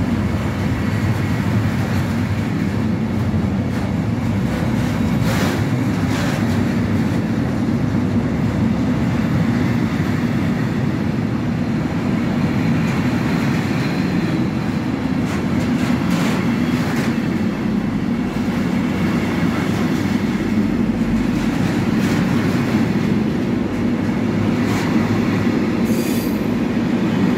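Container flat wagons of a freight train rolling past: a steady rumble of steel wheels on the rails, broken by occasional clicks as the wheels pass over rail joints.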